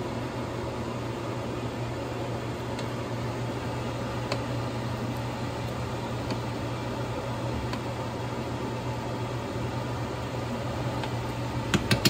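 Steady fan-like kitchen hum with a low drone, with a few faint clicks of a metal spoon stirring butter into a pot of simmering stew, then a quick run of sharp clicks near the end.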